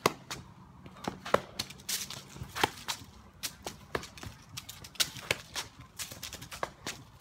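Footsteps and sharp slapping clicks from a person doing walking stretch kicks (leg swings) on a concrete court, an uneven run of about two or three a second.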